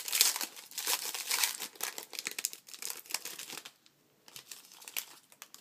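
Foil wrapper of a trading-card pack crinkling and tearing as it is opened, for about three and a half seconds, followed by a few light clicks of cards being handled.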